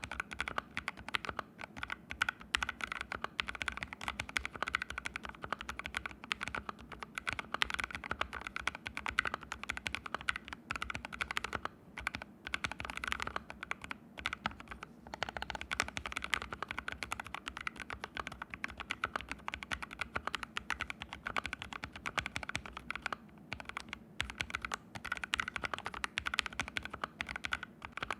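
Steady typing on an ABKO AR61 mechanical keyboard with fully lubed Haimu Sea Salt switches and no pads, set directly on the floor. It is a dense stream of keystroke clacks with a few short pauses.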